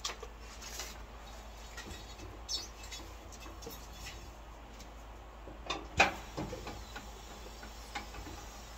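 Handling sounds of a tire being lubed and set onto a wheel rim on a tire-changing machine: scattered rubbing, scraping and light knocks, with one sharp knock about six seconds in as the tire and mounting head are seated.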